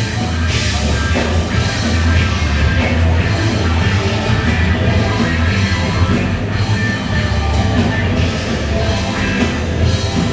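A rock band playing live, heavy and loud: distorted instruments over a steady drum-kit beat.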